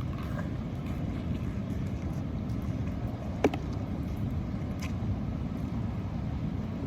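Steady low outdoor rumble, with one sharp click about three and a half seconds in.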